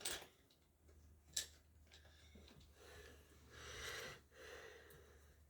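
Near silence, with a faint click at the start, a sharper click about a second and a half in, and soft rustling sounds in the second half.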